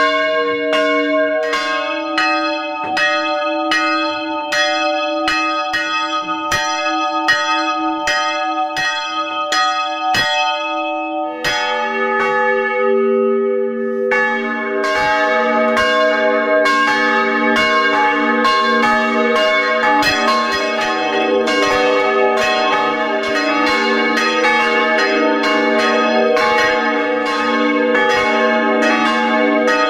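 Swinging bronze church bells rung by hand with ropes, heard up close in the belfry: repeated strokes that ring on and overlap. About eleven seconds in, a larger, deeper bell joins, and from about fourteen seconds several bells strike together in a denser peal.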